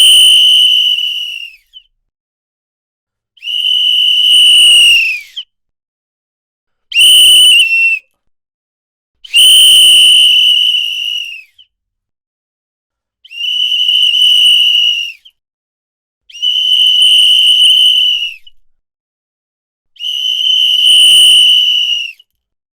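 A whistle blown in seven separate blasts, each one to two seconds long, with silences of about a second and a half between them. Each blast is a steady high-pitched tone, and most dip slightly in pitch as they tail off.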